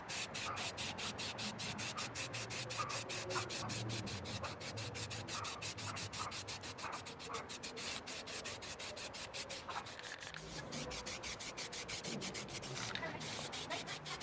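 Aerosol can of filler primer spraying, its hiss coming in a fast, even stutter of about seven pulses a second, with a brief break near the end.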